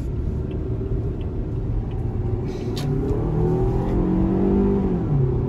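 A Toyota car's engine heard from inside the cabin. The revs climb steadily as it accelerates in manual-shift mode, then drop sharply a little before the end as the transmission changes gear.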